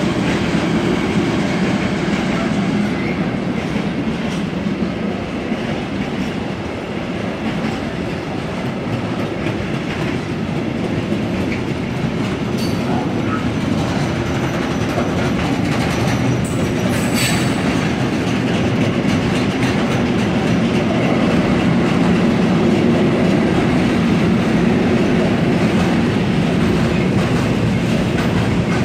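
A freight train's wagons, covered wagons and tank wagons, running past close by at speed: a steady rumble and rattle of wheels on the rails, growing louder in the second half. A couple of brief sharp clicks come about halfway through.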